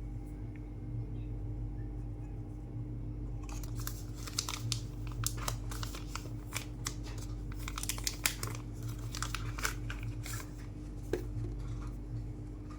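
Product packaging being opened and handled: paper and plastic crinkling and tearing with quick clicks. It starts about three and a half seconds in and thins out near the end, over a steady low hum.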